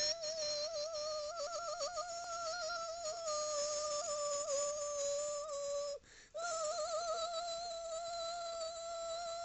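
A child's voice holding one long high note, made on purpose as an annoying noise, wobbling a little in pitch; it breaks off briefly about six seconds in for a breath and then goes on at the same pitch.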